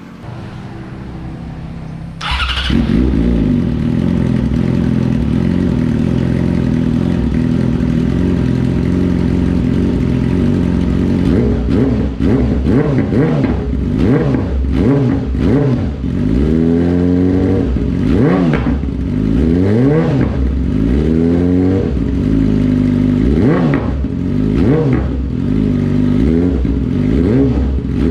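2018 Yamaha YZF-R6's inline-four engine breathing through an M4 slip-on exhaust: it starts up about two seconds in and idles, then from about eleven seconds on it is revved in repeated throttle blips, each rising and falling back to idle.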